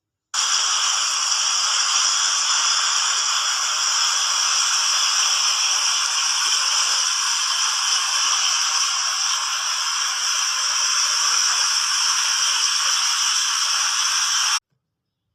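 Water fountain splashing: a steady, even rushing hiss that breaks off into silence for a moment near the end.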